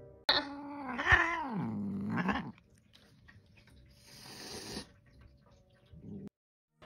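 A cat yowling: one drawn-out growling call that slides down in pitch and then back up, followed about four seconds in by a quieter breathy hiss.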